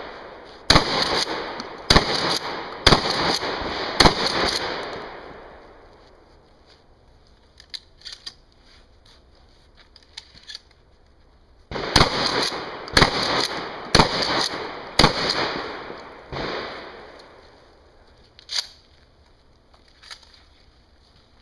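Remington 870 pump-action shotgun firing, each shot ringing out in an echo: four shots about a second apart, a pause with a few quiet clicks, then four more shots at the same pace followed by two fainter bangs.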